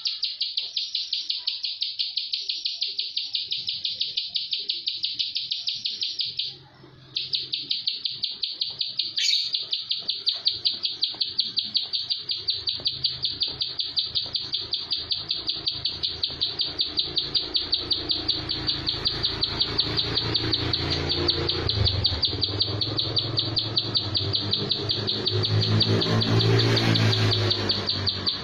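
A caged plain prinia (prenjak sawah) calling in a long, fast, unbroken run of repeated high notes, about five a second, with one short pause about seven seconds in. This is the tight, rapid-fire 'tembakan' calling that bird keepers value.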